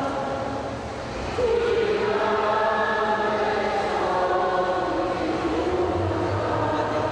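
A group of voices singing a slow hymn during Mass, in long held notes, with a new phrase starting about a second and a half in.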